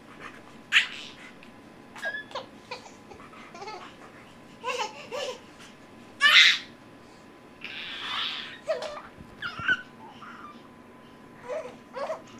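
Babies babbling and laughing in short, separate bursts, with a loud high squeal about six seconds in.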